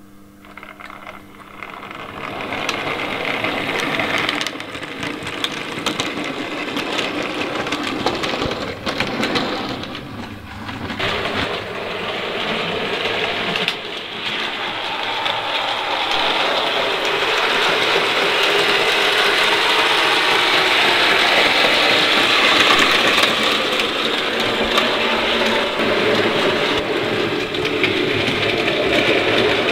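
OO gauge model locomotive running on the track: the motor and gears whirring, with small clicks from the wheels on the rails, growing louder over the first few seconds and then running on steadily.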